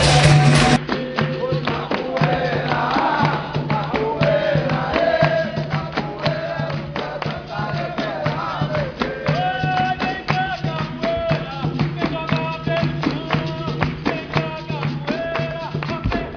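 Capoeira music: singing over a steady low instrument note and a busy percussion rhythm with tambourine-like jingles from the pandeiro. About a second in, the sound cuts abruptly to a different, duller recording of similar music.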